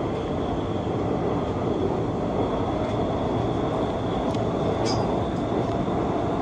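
Seoul Subway Line 2 train running at steady speed: an even rumble and rail noise with a faint high whine held throughout, and two faint ticks about four and five seconds in.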